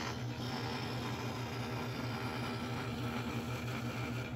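Scroll saw running and cutting through an 18 mm thick wooden board: a steady low hum with an even rasping noise above it.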